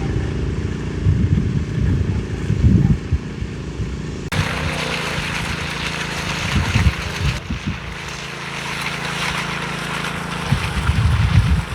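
Engines of concrete-pour machinery running with a steady low drone and irregular low rumbles. The sound changes abruptly twice.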